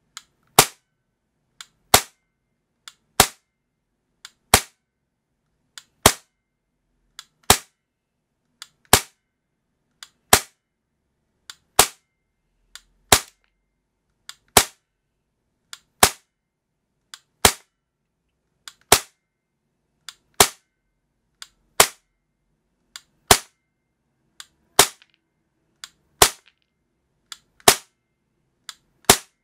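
Tokyo Marui USP9 gas blowback airsoft pistol firing slow single shots, about one every second and a half, each a sharp crack with the slide's blowback. A lighter click comes just before each shot.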